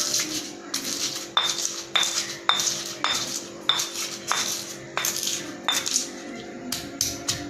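A pestle pounding chillies, peppercorns and candlenuts in a mortar to a spice paste: repeated sharp clinking strikes a little under two a second, coming faster near the end.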